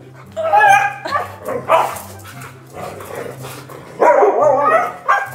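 Siberian huskies barking and yipping at each other in rough play: a cluster of short, pitched barks in the first two seconds, then another run about four seconds in.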